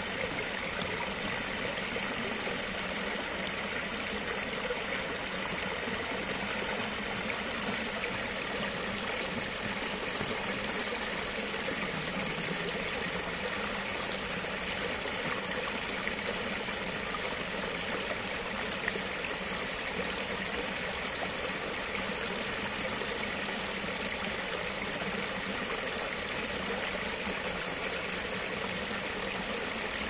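A brook running: an even, unbroken rush of flowing water.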